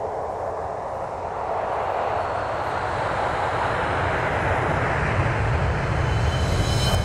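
Cinematic whoosh sound effect: a rushing, rumbling swell that climbs in pitch and loudness over several seconds. It ends in a sharp hit with a high ringing shimmer near the end.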